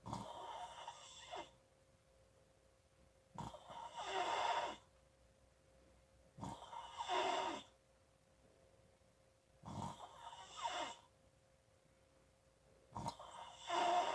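Squeaky snoring: five snores evenly spaced about three seconds apart, each lasting about a second and a half with a high squeaky whistle in it. A faint steady hum runs underneath.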